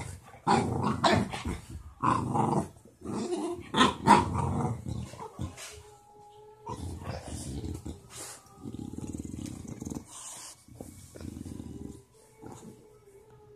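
Dogs barking and growling: several loud barks in the first four seconds or so, then long stretches of low growling.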